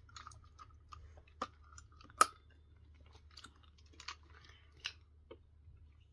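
Chewing and small wet mouth clicks close to the microphone, with a few sharper clicks, the loudest about two seconds in.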